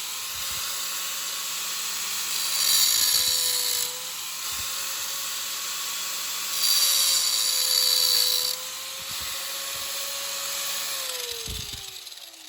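A small high-speed electric power tool running with a steady whine, with two louder stretches of grinding contact on metal. Near the end it is switched off and spins down, its pitch falling.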